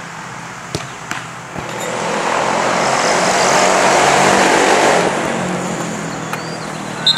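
A road vehicle passing, its noise swelling for about two seconds and fading away. A few sharp knocks come before it, and a brief loud high-pitched tone near the end.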